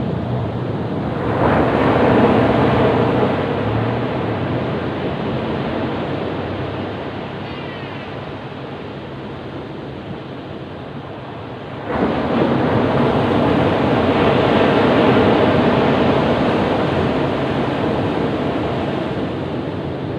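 Ocean waves breaking on a beach: one wave swells up about a second and a half in and slowly washes out, then a second wave crashes in suddenly about twelve seconds in and fades away.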